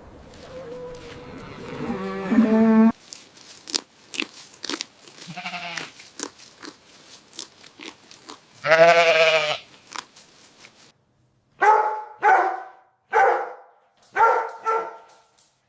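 Farm animal calls mixed with crunching clicks like chewing. There are a few pitched calls in the first ten seconds, the longest and loudest about nine seconds in, then five short, higher calls in quick succession near the end.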